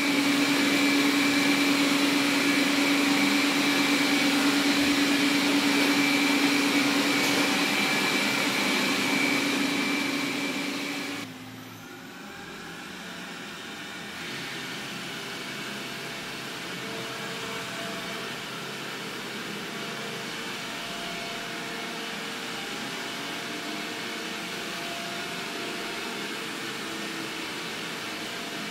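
Robot vacuum cleaners running with a steady motor and fan hum. About eleven seconds in the sound cuts to a quieter, more distant hum: a Xiaowa robot vacuum spot-cleaning in circles.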